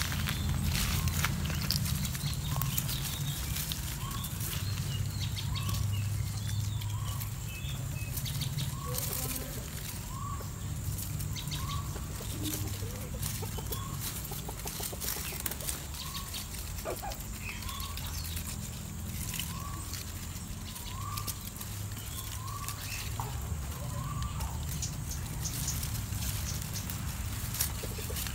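A bird repeating a short rising call about once a second, with scattered clicks and rustles from hands working wire among bonsai branches, over a steady low hum.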